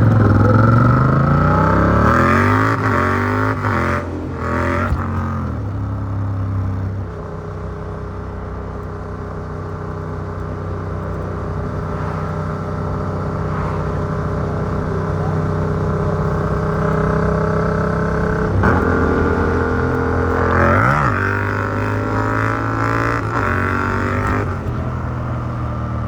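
Yamaha MT-07's parallel-twin engine through an Arrow Works exhaust with dB killer, heard from the rider's backpack. It revs hard up through the gears at the start, with breaks at the shifts, then holds a steady, slowly climbing note. About two-thirds of the way through there is a quick drop-and-blip in revs, and then it pulls up through the revs again.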